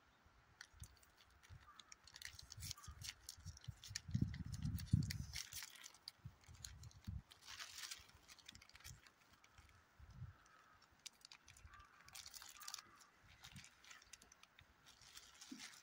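Clear plastic sheet and a biscuit packet's wrapper crinkling as they are handled and torn open, in irregular spells of crackling, with a few dull bumps about four to five seconds in.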